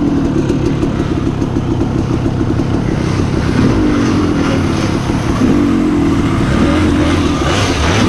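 Two-stroke dirt bike engine being ridden, revving up and down over and over as the throttle is worked.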